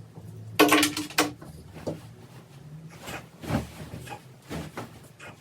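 Dishes and utensils being handled: a quick run of sharp clinks with a brief ring about half a second in, then several softer knocks and taps.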